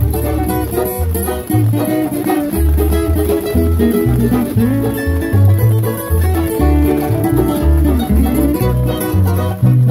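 Acoustic bluegrass jam: banjo and mandolin picking a tune over upright bass and guitar, the bass plucking steady rhythmic notes underneath.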